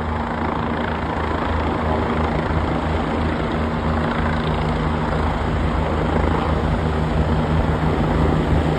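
Formation of Bell 429 twin-turbine helicopters flying slowly past, a steady rotor and engine drone that grows slightly louder toward the end.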